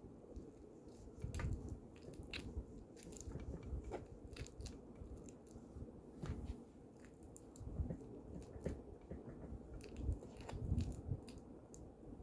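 Slime mixture being stirred and worked in a bowl: sticky squelches with irregular crackling clicks and soft thumps.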